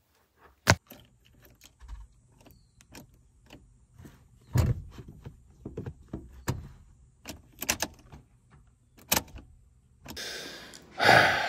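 Clicks and knocks of a car key and ignition being worked in a car that won't start: the engine is dead and does not crank or run. There is a heavier knock about four seconds in and a short rush of rustling noise near the end.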